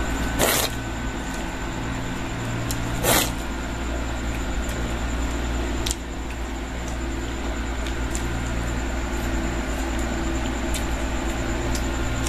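Steady low mechanical hum with a thin high whine, broken by two short knocks about half a second and three seconds in.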